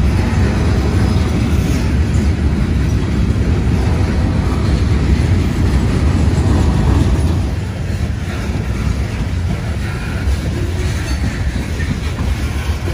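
Freight train cars rolling past close by, their wheels running steadily on the rails with a continuous low rumble. The sound drops somewhat about seven and a half seconds in.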